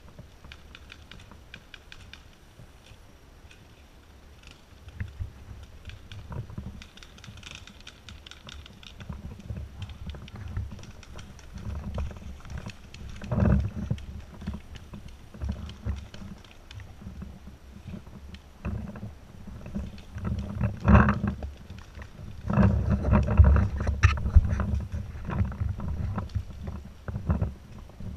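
Footsteps on a dirt trail and dry scrub brushing against a moving paintball player and his marker, with irregular knocks and rumbling handling noise on the microphone. It grows busier and louder in the second half.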